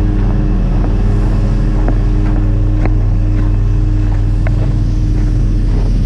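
Semi truck's engine at raised idle running the vac trailer's vacuum pump: a steady, loud low drone with a constant hum, with a few light clicks over it.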